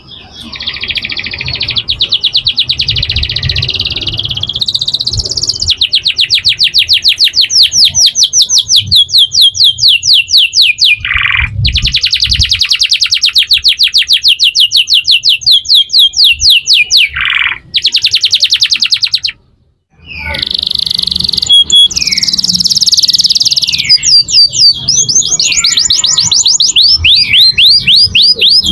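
Domestic canaries singing: long rolls of evenly repeated high notes, several notes a second, broken by short pauses. The song drops out for about a second around two-thirds of the way through, then picks up again in quicker, choppier rolls.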